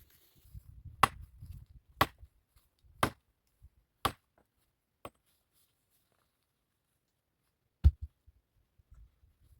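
Wood being chopped: five sharp strikes about a second apart, then a heavier, deeper thud near the end.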